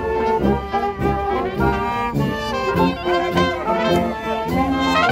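Marching brass band playing a tune: sousaphone, trombones, trumpets and saxophones over a steady bass drum and cymbal beat.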